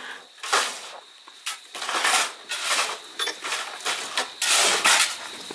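Metal hand tools scraping and scooping freshly mixed concrete as it is poured by hand, in a run of short scrapes and clatters.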